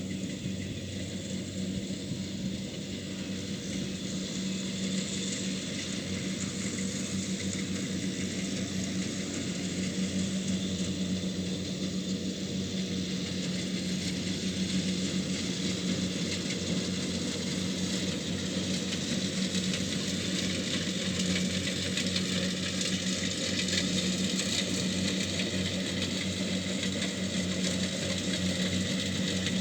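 Kubota DC70 Plus rice combine harvester running steadily, its diesel engine giving a constant hum under the whir of the machinery. It grows slightly louder from about ten seconds in.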